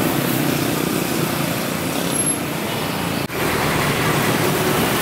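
Street traffic: motorcycles and cars passing with their engines running and tyres on asphalt. There is a brief dropout a little over three seconds in where the recording is cut.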